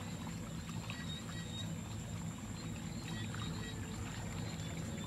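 A hand splashing and sloshing muddy water in a shallow dug channel, with scattered small splashes, over a steady low hum.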